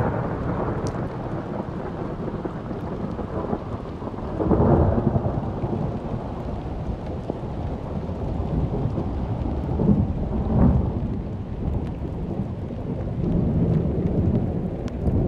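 A loud, steady rumbling noise with no clear pitch that starts abruptly and swells twice, about four and a half seconds in and again around ten seconds in.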